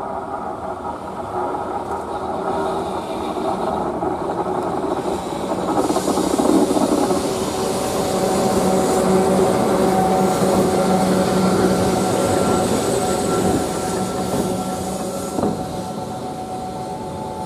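EF63 electric locomotive rolling slowly past at close range: wheels running on the rails under a steady humming and whining of its machinery, louder as it comes closest about halfway through, then easing.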